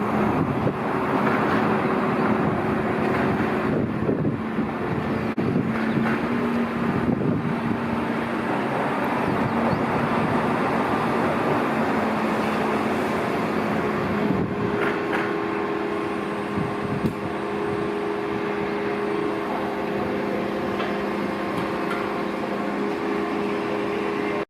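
Motor vehicle running steadily: continuous engine drone with road noise.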